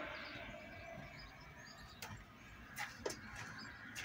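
Faint outdoor morning background with distant birds chirping, broken by a few short sharp clicks about two and three seconds in.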